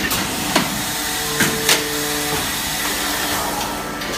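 Thermoforming machine running: a steady mechanical hum and hiss, with a few sharp metallic clanks in the first two seconds.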